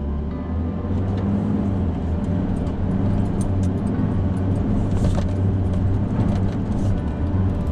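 Four-wheel-drive vehicle under way: the engine runs at a steady drone, with scattered knocks and rattles from the vehicle.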